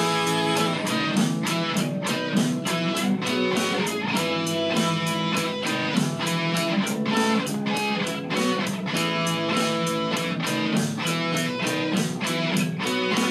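Electric guitar, a sunburst Fender Stratocaster, playing a picked rhythm part of a slow ballad in a steady beat of about four strokes a second.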